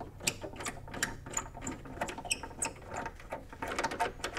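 Thumb nuts on the Mellotron's key-bed studs being unscrewed by hand: a run of small irregular clicks with a few short high squeaks in the middle.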